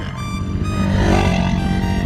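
Background music: held notes at several pitches over a low pulsing beat.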